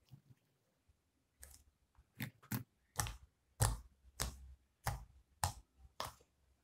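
Homemade white glitter slime being pressed and squished by hand in a glass bowl, giving a series of sharp clicking pops, about eight of them, roughly one every half second to second, starting about two seconds in.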